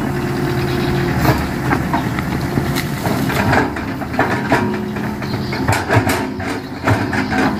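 Sumitomo S265 F2 hydraulic excavator's diesel engine running as the machine works, its note shifting, with frequent sharp knocks and clanks over it.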